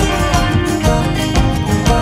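Music: an instrumental passage of a folk song between sung lines, plucked strings over a steady beat.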